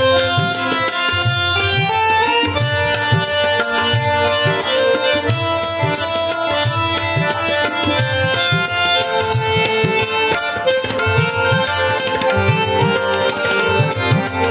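Instrumental interlude of a Bengali song: a quick, steady hand-drum rhythm under held melodic instrument lines, with no singing.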